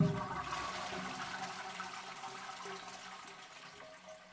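Toilet flushing: a sudden rush of water that gradually fades away.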